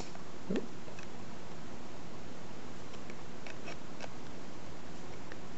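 Needle-nose pliers working the nut of a fan adapter plug on a plastic junction box: a few faint, scattered metal-on-plastic clicks and ticks over a steady background hiss.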